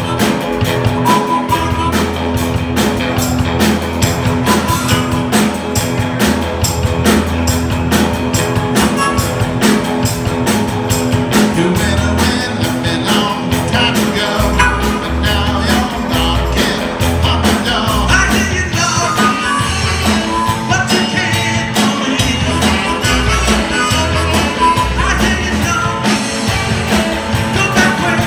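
Live rock and roll band playing with drum kit and electric guitars, a harmonica played into a vocal mic carrying the melody.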